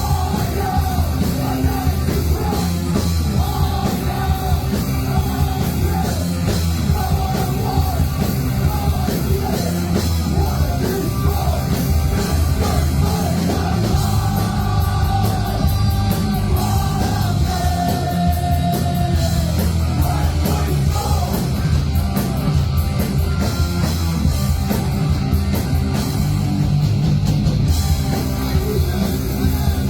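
Live heavy rock band playing loud and without a break, with a shouted, yelled vocal over the instruments.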